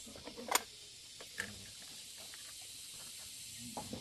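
A few short clinks and knocks of bowls and utensils being set down, the sharpest about half a second in, over a steady background hiss.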